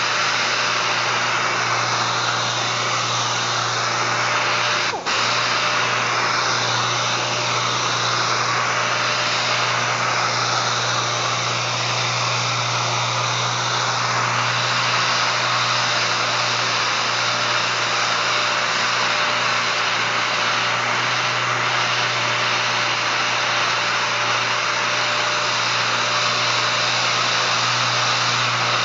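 A 3M 6-inch random orbital air sander running steadily as it is worked across a solid surface countertop, a constant low hum under a broad hiss. The sound dips briefly about five seconds in.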